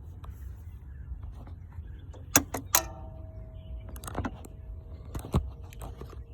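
A few sharp metallic clinks of hand tools being handled, about four in all. One leaves a brief ringing tone after it, like a steel tool or socket struck against metal.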